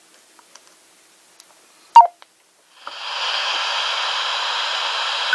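BaoFeng UV-5R5 handheld transceiver giving a short two-note key beep about two seconds in. Under a second later its FM broadcast receiver switches on, untuned, and plays a steady hiss of static. Another short beep comes at the very end.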